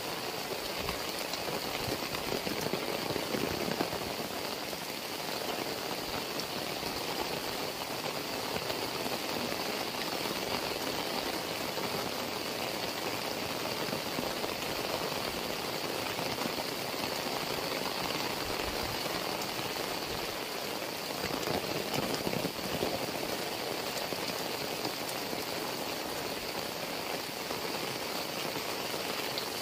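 Heavy rain falling steadily: a dense, even hiss with many close drops striking the ground and plants.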